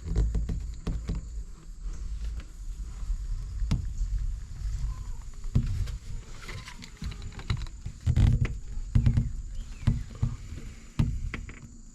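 Screen spline roller pressing rubber spline into the groove of an aluminium window-screen frame: irregular rubbing, rolling and short clicks, with a run of heavier thumps of handling late on.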